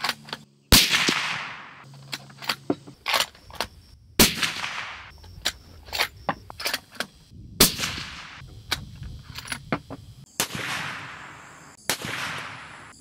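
Suppressed 7mm Remington Magnum bolt-action rifle (Tikka T3X) fired several times, each sharp report followed by a long fading echo. Small metallic clicks of the bolt being cycled come between the shots.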